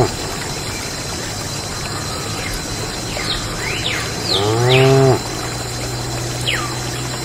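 A cow moos once about four seconds in, one call of about a second that rises and then holds before cutting off. Water pours and trickles steadily underneath, with a few short high chirps.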